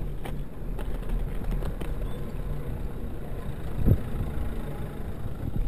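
Steady low rumble of a bicycle riding over city paving, with a few light rattles and a single knock about four seconds in.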